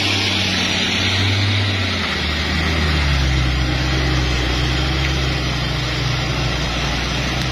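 Diesel engine of an intercity coach bus driving past and pulling away uphill, a steady low drone whose note drops about two seconds in, with tyre hiss on the wet road.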